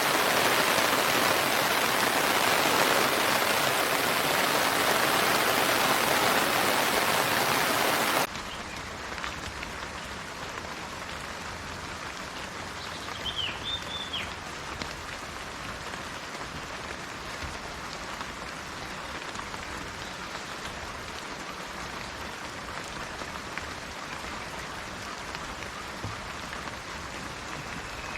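Heavy rain that cuts off abruptly about eight seconds in to lighter, quieter rain. A bird chirps briefly once, midway through the lighter rain.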